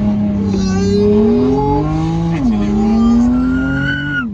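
BMW M3 F80's twin-turbo inline-six with an equal-length exhaust under hard acceleration. The revs climb, drop with an upshift a little over two seconds in, climb again, and fall sharply near the end.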